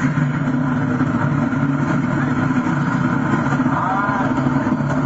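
Pickup truck engine running steadily at a constant speed, loud and unchanging.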